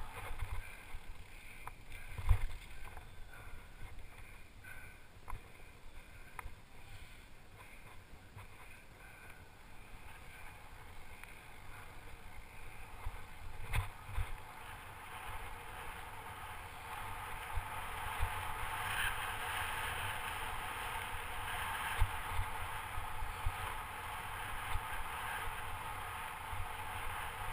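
Orange Alpine 160 full-suspension mountain bike descending a rough dirt trail: rumble and rattle of tyres and frame over the bumps with wind noise, sharp knocks throughout and heavier thumps about two seconds in and about halfway. The rush grows louder in the second half.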